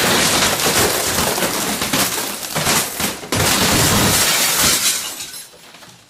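Crash sound effect of glass shattering and breaking, a dense continuous smash and clatter that surges again sharply about three seconds in, then fades out near the end.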